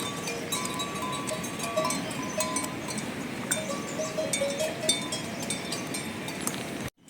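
Livestock bells clinking irregularly as the animals move, many short ringing notes overlapping.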